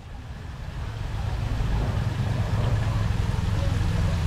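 Steady rushing of water, as from the cafe's waterfall, fading in over the first second or so and then holding, heavy in the low end.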